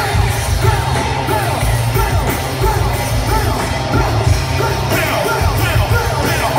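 Live rock band playing loud through the PA, with a heavy steady low end and yelled vocals over it.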